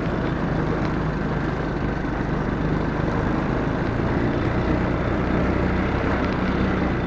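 Four-wheeler (ATV) engine running steadily while driving, a continuous low hum with no change in speed.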